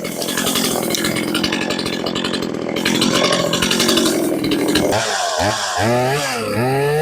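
Two-stroke petrol chainsaw running under load, cutting pine branches, for about five seconds. After that its engine pitch rises and falls over and over, about once a second, as the throttle is worked off the cut.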